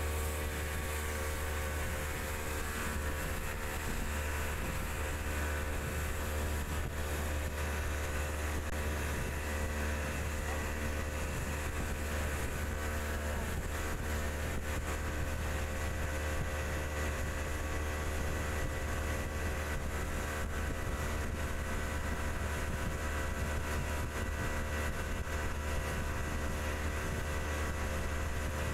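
Speedboat's outboard engine running steadily at full speed, heard from on board, with a constant low hum and the rush of water along the hull.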